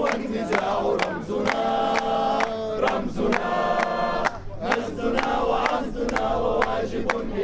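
Protest crowd chanting slogans in Arabic in unison while clapping steadily, about two claps a second.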